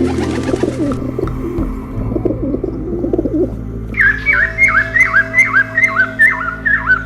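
Birds calling: low, warbling coos for the first three seconds or so, then, from about four seconds in, a quick run of sharp high chirps, about three a second.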